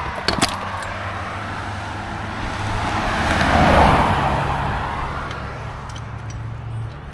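A motor vehicle passing on the road, swelling up and fading away with its loudest point about four seconds in, over the steady low hum of a Honda Tornado's single-cylinder engine idling, the bike's drive chain slack and sagging. A couple of sharp metallic clicks come about half a second in.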